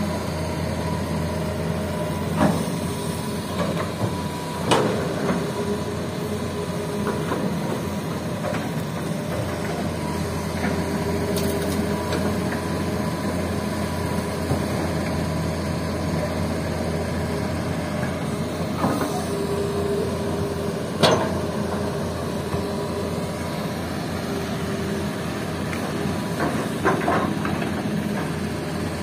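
Hitachi hydraulic excavator's diesel engine and hydraulics running steadily while loading sand into a dump truck, with a few sharp knocks as the bucket works.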